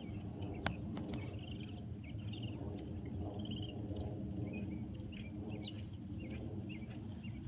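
Small birds chirping and twittering over a steady low rumble, with one sharp click less than a second in.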